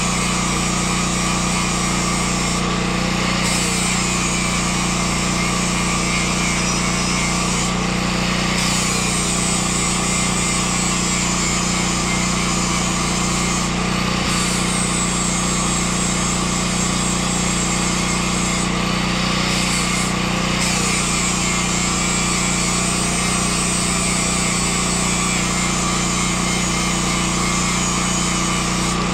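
A portable generator engine running steadily, with a continuous crackling hiss on top from the metalwork it powers.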